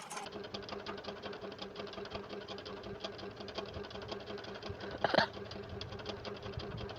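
A small motor or engine running steadily with a fast, even rhythmic chatter, and one short louder sound a little after five seconds.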